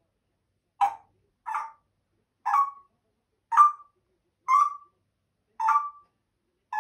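African grey parrot calling: a run of short, clipped calls, about one a second, each with a slight upward lilt at its end.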